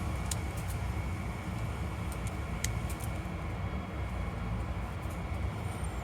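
Steady low rumble of background noise, with a few light clicks of a pistol magazine being loaded and handled; no shots are fired.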